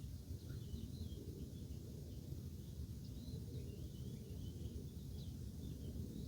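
Faint bird chirps over a steady low rumble of background noise.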